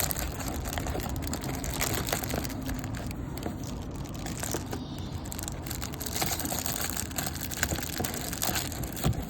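Plastic wrapper of a baseball-card rack pack crinkling and tearing as it is pulled open by hand, a continuous stream of small crackles.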